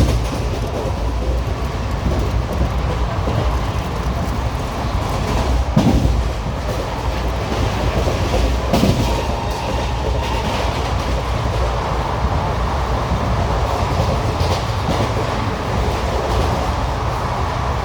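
ICF passenger coach running on the track: a steady rumble with wheels clattering over the rail joints, and a few louder knocks about six and nine seconds in.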